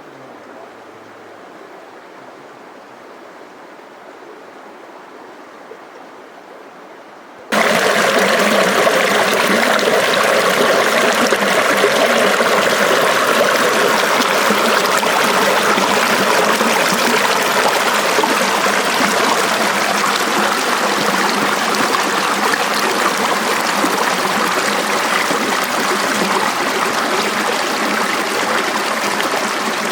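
Desert canyon creek flowing over rocks: a soft steady rush at first, then, about seven seconds in, the sound jumps abruptly to loud, close rushing water.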